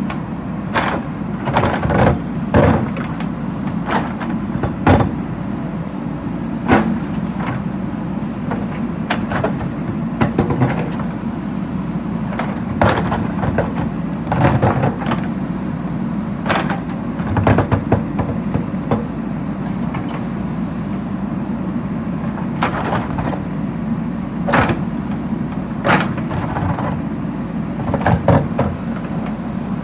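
JCB backhoe loader's diesel engine running steadily under load, with irregular sharp clanks and knocks as the bucket strikes and breaks up brick and stone.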